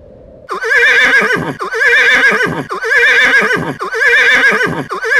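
A pony's whinny, the same call repeated five times at even spacing about once a second, starting about half a second in.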